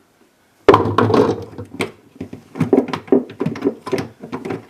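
A sudden loud thunk about two-thirds of a second in, then a run of short plastic knocks and rattles: the refrigerator's plastic panel being pushed and tugged upward, held fast by something still fastened.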